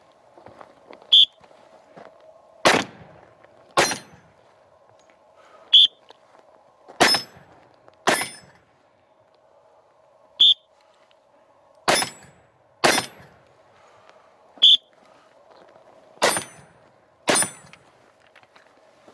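Glock 10mm pistol fired in four pairs of shots, the shots in each pair about a second apart. Between the pairs come four shorter, sharper cracks that each carry a brief ringing tone.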